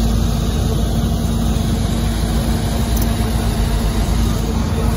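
Deep, loud, steady low rumble from a large sound system's speaker stack heard from behind the cabinets during a sound check, with a constant hum over it.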